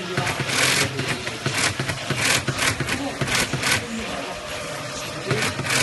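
Industrial glove-finger sewing machine running in short, irregular bursts over a steady motor hum.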